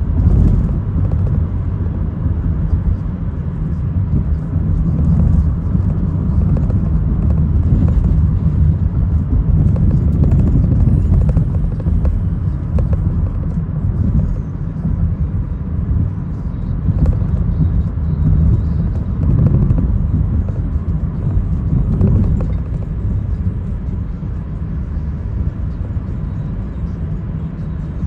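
A car driving, its engine and tyres giving a steady low road rumble that swells and eases a little as it goes.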